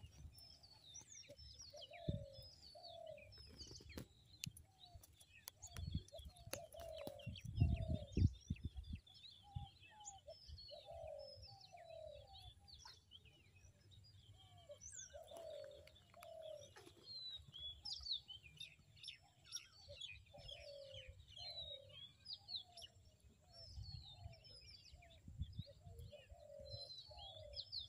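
Wild birds calling: many small birds chirping high and quick, over a lower bird call repeated again and again in pairs of short falling notes. A few low thumps and rumbles come about seven seconds in, the loudest moment.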